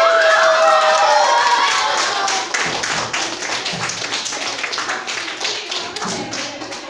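A classroom of children cheering with high excited voices at first, then from about two seconds in, clapping in fast, dense applause.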